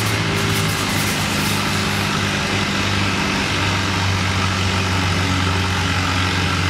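Farmall tractor engine running at a steady, even pitch under load while the tractor drags a weight-transfer sled down the pulling track.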